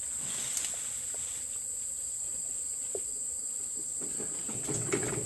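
Insects in a patch of flowering weeds where honeybees are foraging: a steady high-pitched drone throughout, with a lower buzzing that swells about four seconds in.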